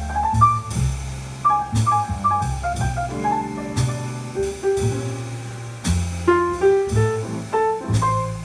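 Live jazz on a Fazioli grand piano carrying the melody over upright double bass and drums, the piano's notes ringing and decaying over sustained bass notes.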